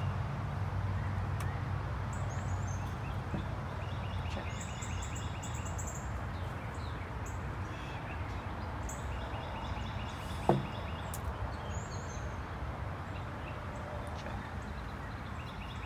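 Open-air ambience with a steady low rumble, and birds chirping in short repeated phrases throughout. About ten seconds in, one sharp knock of a wooden chess piece set down on the board.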